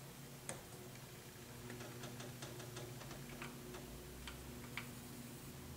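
Faint, irregular light clicks of a wrench and screwdriver working a rocker-arm adjuster on a Triumph Spitfire 1500's valve gear, as a valve lash found too tight is reset. A faint steady low hum runs underneath.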